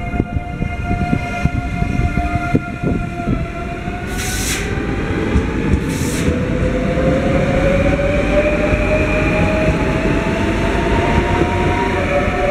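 CFL class 2200 double-deck electric multiple unit pulling away, its traction motors giving a whine that rises steadily in pitch as it gathers speed, over a low wheel rumble. A few clicks of wheels over rail joints come in the first seconds, and two short hisses come about four and six seconds in.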